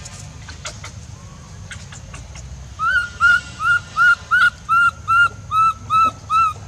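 Newborn baby macaque crying: a run of about a dozen short, high, arching calls, evenly repeated about two and a half times a second, starting about three seconds in. Before the crying, only a few faint clicks.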